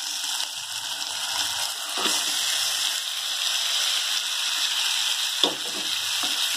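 Hot mustard oil and onions sizzling steadily in an aluminium kadai as marinated mutton is tipped in from a bowl. One sharp knock about five and a half seconds in.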